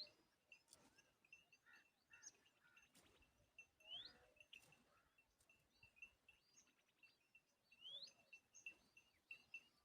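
Faint bird calls: a short rising whistled note repeats about every four seconds, with many short high chirps in between.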